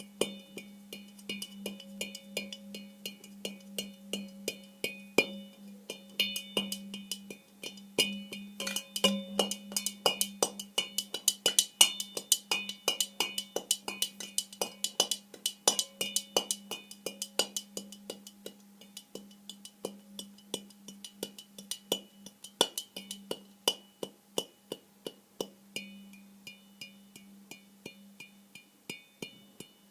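A metal pan lid tapped over and over in an improvised rhythm. Each tap leaves the lid ringing with a steady low hum and bright metallic overtones. The taps come thick and fast in the middle and thin out later on.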